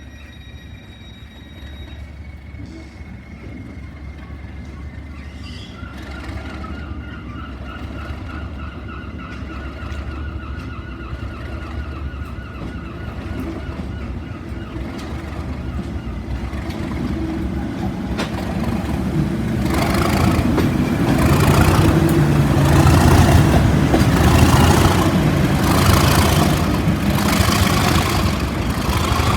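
English Electric Class 37 diesel locomotive pulling away under power, its engine getting steadily louder and loudest near the end, with a regular beat about once a second in the last ten seconds.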